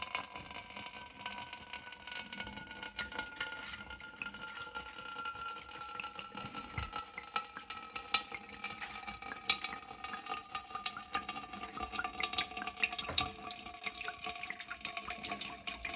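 Coolant running out of a PC custom water-cooling loop through the radiator's drain, with many small splashing ticks and two faint ringing tones that slowly fall in pitch.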